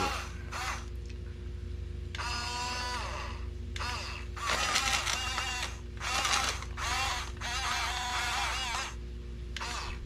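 Huina 1569 RC bulldozer's small electric drive motors and plastic gearboxes whining in short bursts that rise and fall in pitch as the model pushes a load of dirt and mulch.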